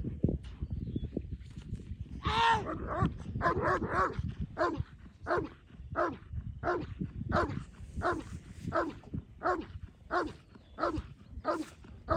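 German Shepherd barking steadily at the protection helper, about two barks a second, starting about two seconds in: the dog is guarding the helper after letting go of the sleeve.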